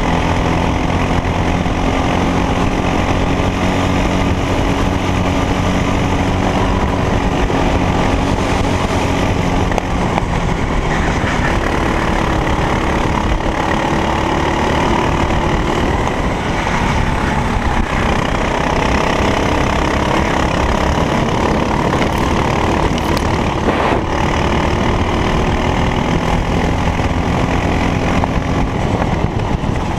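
Racing kart's engine running hard, its pitch slowly rising and falling as it accelerates and slows through corners.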